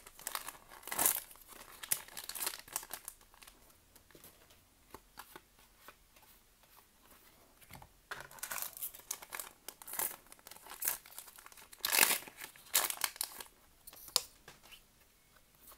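Foil booster-pack wrappers of Pokémon trading cards crinkling and tearing in several short bursts, with quieter pauses between.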